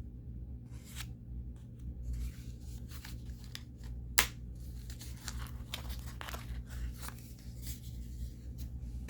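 Action-figure packaging being opened by hand: plastic and cardboard tearing and crackling in short, irregular scrapes, with one sharp snap about four seconds in.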